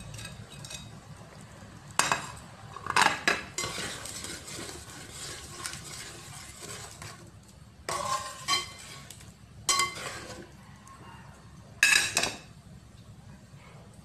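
A metal spatula stirring curry in an aluminium pot, clanking sharply against the pot several times, over a steady low hiss.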